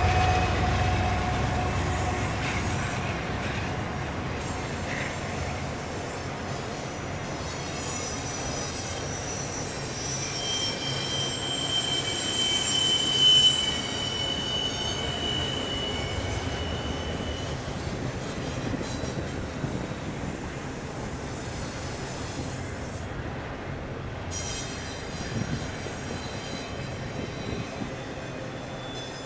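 Double-stack intermodal freight train's loaded well cars rolling past, steel wheels on rail giving a steady rumble with high-pitched wheel squeal, strongest in the middle. The rumble slowly fades.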